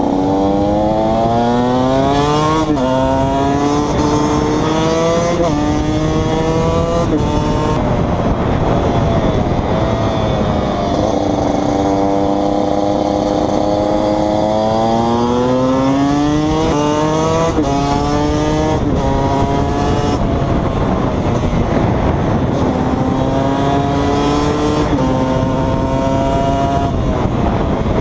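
KTM 125 EXC's single-cylinder two-stroke engine under way, revving up through the gears with a sudden drop in pitch at each upshift. Partway through it holds a steady pitch for a few seconds, then pulls up through the gears again.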